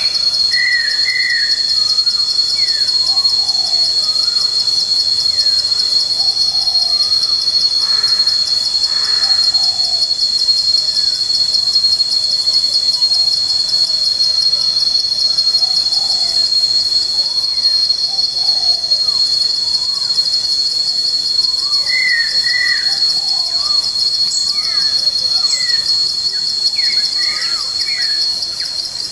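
Steady, high-pitched insect trill, loud and unbroken, with scattered short bird chirps and sliding calls over it, thickest near the end.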